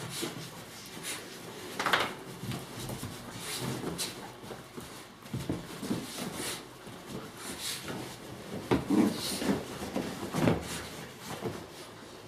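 Basenjis play-wrestling on a sofa: paws and bodies scuffling on the cushions, with irregular knocks and thumps. The loudest come about two seconds in and again around nine to ten seconds in.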